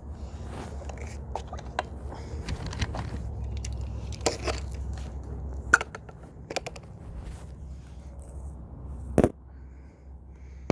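Handling noise from a phone and an air rifle being held up to aim: rustling, scrapes and scattered small clicks over a low rumble, with a sharp click about halfway and a louder knock near the end.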